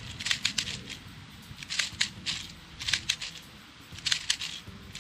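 BBs being pressed one by one into an airsoft gas-blowback pistol magazine, sharp plastic-and-metal clicks in small clusters every half second or so, over a low rumble of wind on the microphone.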